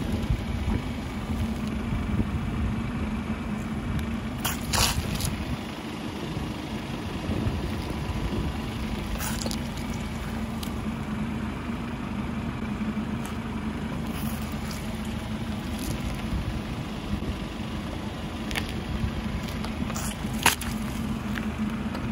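A car engine idles steadily while its tyre rolls slowly over small objects, crushing them. There are scattered sharp cracks and pops with some squishing, and the loudest crack comes near the end.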